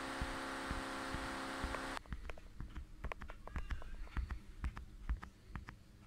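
A steady hum with hiss, stopping abruptly about two seconds in, followed by scattered light clicks and taps of plastic vacuum-filter parts being handled.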